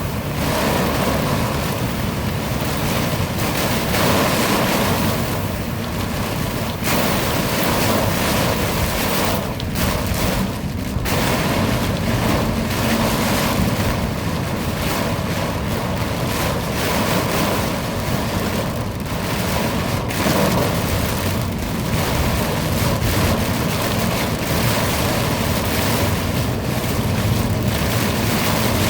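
Heavy thunderstorm downpour with wind, a loud steady rush of rain and gusts on the phone's microphone that dips briefly a few times.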